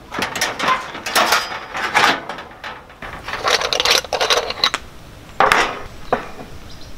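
Metal clattering and rattling as a folding two-burner camp stove is opened: the lid lifted and its hinged side windshield panels swung out. The noise comes in several bursts, with a sharp clank about five and a half seconds in and a short knock just after.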